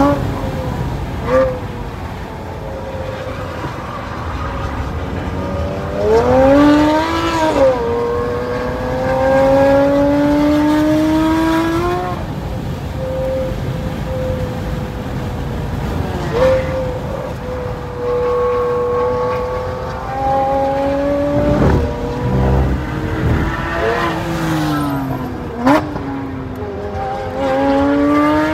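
Tri-motor Tesla Model S Plaid driven hard on a race track, heard from inside the cabin. Road and wind noise run under a whine that rises and falls in pitch as the car accelerates and brakes, with a few short sharp peaks along the way.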